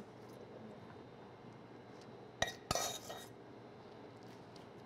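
A metal spoon knocking against a small pan twice, about halfway through: a sharp tap, then a short ringing clink, as toasted curry leaves are spooned out. Otherwise quiet.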